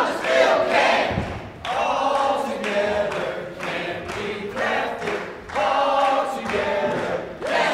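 A group of voices singing together, without instruments, in short rhythmic phrases about a second long. A dull thud sounds about a second in.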